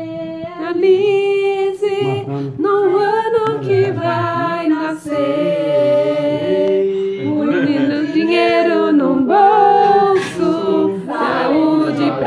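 A group of people singing together without instruments, several voices holding long notes and sliding between them.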